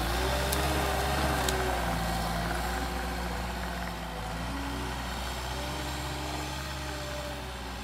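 Caterpillar 259D compact track loader's diesel engine running steadily as the machine drives away carrying logs in its grapple, slowly fading with distance.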